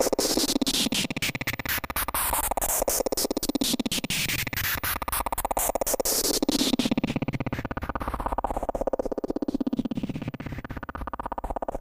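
Teenage Engineering OP-1 synthesizer playing one of its presets: a fast buzzing stream of pulses, with a sweep falling in pitch again and again, about every three seconds.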